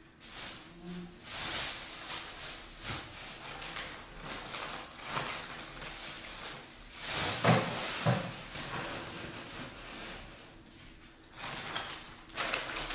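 Plastic bags rustling and crinkling as belongings are packed into them, with two louder knocks about halfway through.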